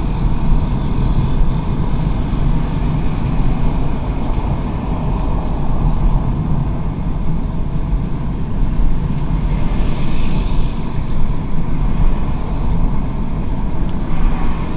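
Steady road noise inside a moving car's cabin: a low rumble of engine and tyres on the bridge deck, with a brief swell of hiss about ten seconds in.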